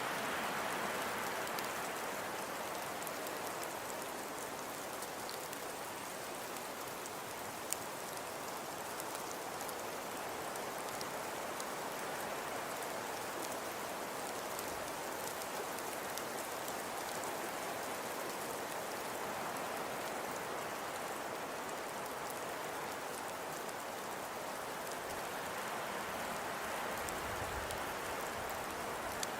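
Steady hiss of falling precipitation, with fine scattered ticks as it lands on a surface and slow, gentle swells in level. There is one sharper tick about eight seconds in.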